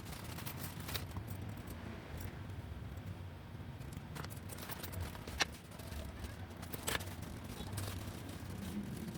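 Scattered light clicks and taps of computer parts being handled during assembly, one sharper click about halfway through, over a low steady hum.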